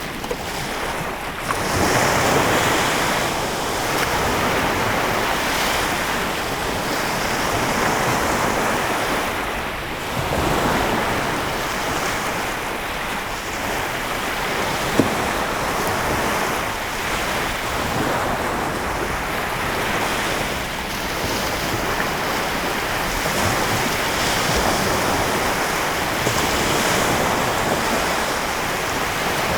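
Lake Michigan waves washing onto the shore: a continuous rushing wash that swells and eases every few seconds as each wave breaks. There is one brief click about halfway through.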